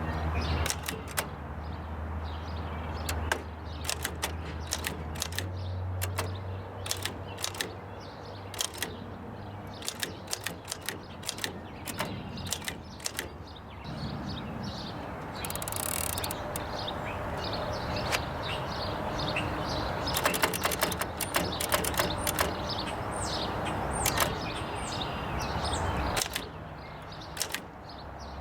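1917 Oliver No. 9 typewriter being typed on: irregular sharp key and typebar clacks, some in quick runs, with a brief rasping noise just past halfway.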